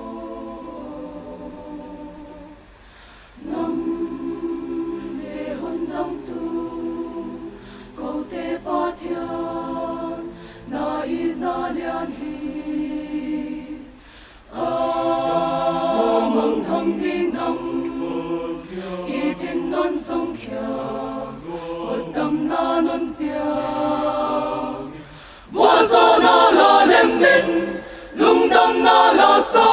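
Mixed choir of men's and women's voices singing a hymn in harmony, unaccompanied, in long held phrases with short breaths between them. It opens softly and swells much louder about four seconds from the end.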